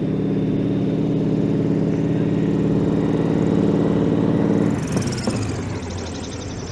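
Sukhoi Su-26M's nine-cylinder Vedeneyev M-14P radial engine running at taxi power with its propeller turning, a steady low drone. About five seconds in the engine eases off and drops in level, with a faint falling high whine.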